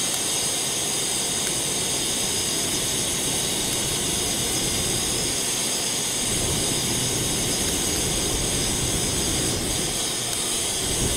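Steady hiss of a Primus gas stove burner turned up to full, alongside a Kelly Kettle's wood fire being blown into at its base. A low rumble comes in about six seconds in as flames shoot from the kettle's chimney.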